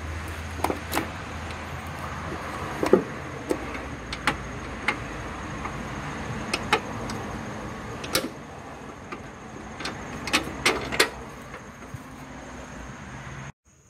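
Scattered metallic clinks and knocks of the engine mount and its large bolts being handled and fitted into place, over a steady low hum; the sound cuts off abruptly near the end.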